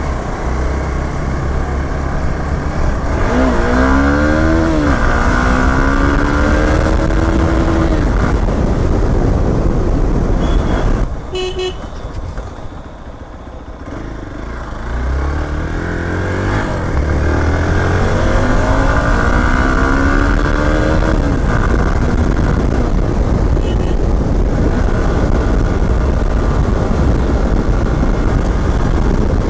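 Motorcycle engine accelerating through the gears twice, its pitch rising in each gear and stepping down at each shift, over heavy wind rumble on the microphone. About halfway through the engine eases off and goes quieter for a few seconds before pulling away again.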